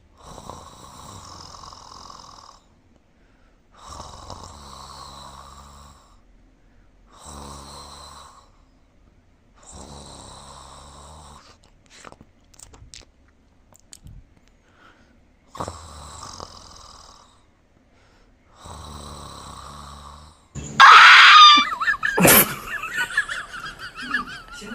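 Cat snoring: a series of raspy snores about two seconds long, spaced by short pauses, six in all. Near the end comes a much louder sudden burst of noise with a sharp crack.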